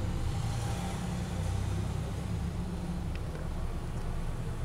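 Steady low background rumble with a faint click about three seconds in.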